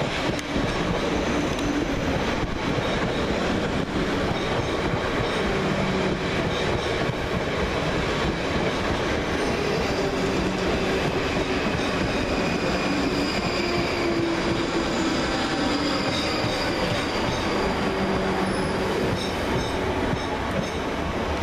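Two coupled South Western Railway Class 458 electric multiple units running slowly along the platform, a steady noise of wheels on rail and running gear with faint whining tones above it.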